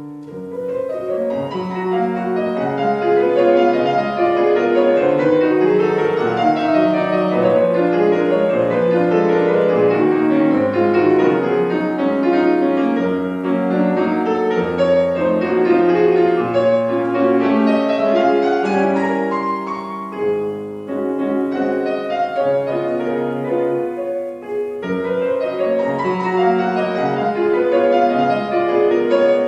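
Grand piano played solo in a live recital: a continuous classical piece full of fast rising and falling runs, with two brief breaths in the phrasing about two-thirds of the way through.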